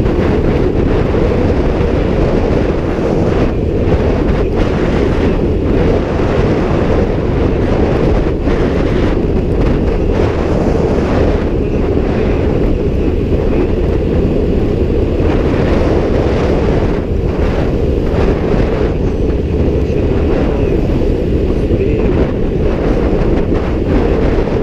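Steady, loud wind buffeting on a GoPro's microphone, in a housing with a vented back door, over a low rumble of movement.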